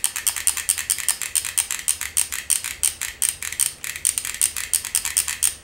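Trigger-feed soldering iron's trigger and ratchet solder feed clicking rapidly and evenly as the trigger is pumped over and over, the feed gears advancing the solder wire toward the tip.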